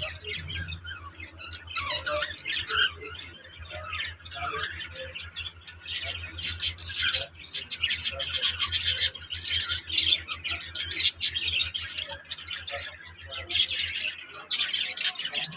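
Many small birds chirping and squawking at once in a continuous, busy chatter. A steady low hum runs underneath and stops near the end.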